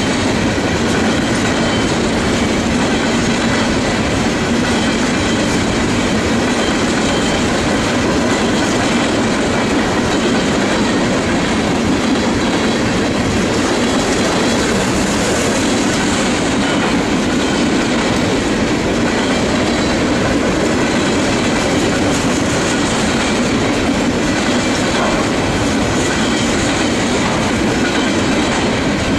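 Double-stack container freight train rolling past at speed: a steady, loud rush of steel wheels on rail with the clickety-clack of wheels over the rails.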